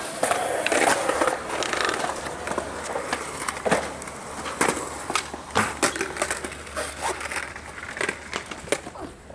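Skateboard wheels rolling on concrete with a rushing sound, followed by a run of sharp clacks and knocks from the board striking the ground, about one a second.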